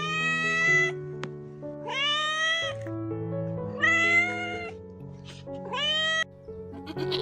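Domestic cat meowing four times, each meow under a second long and about two seconds apart, over background music.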